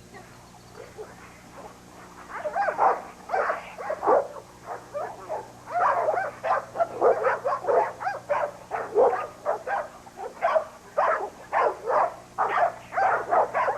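American bulldog barking over and over, several barks a second, starting about two seconds in, over a faint steady hum.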